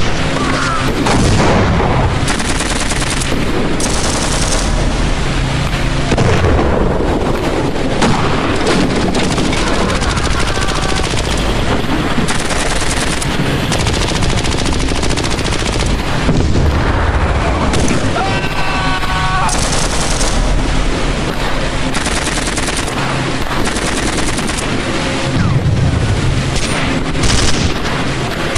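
Simulated battle effects: continuous machine-gun fire and gunshots with occasional booms, dense and unbroken.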